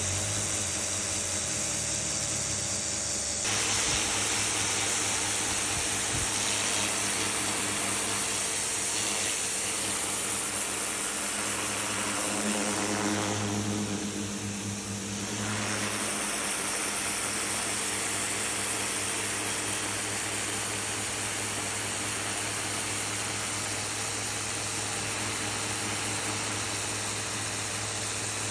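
Electric pressure washer running: its motor and pump hum steadily under the hiss of the water jet on a concrete walkway, with a brief shift in the hum about halfway through.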